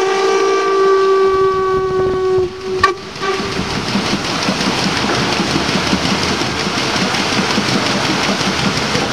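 Steam whistle of the PS Waimarie, a paddle steamer, sounding one steady blast that stops about two and a half seconds in. After a click, a loud, steady rushing takes over: the paddle steamer under way, its paddle wheel churning the river.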